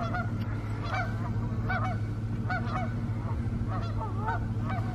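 Geese honking, many short calls a few times a second, over a steady low hum.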